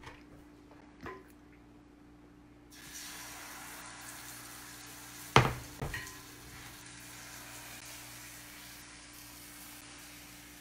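Crepe batter sizzling in a hot buttered frying pan; the hiss starts suddenly about three seconds in and holds steady. Two sharp knocks, about half a second apart, come near the middle.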